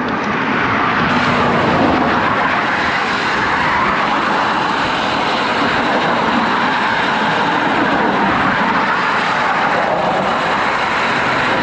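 Steady rush of highway traffic and road noise, heard from a bicycle moving along the bridge shoulder.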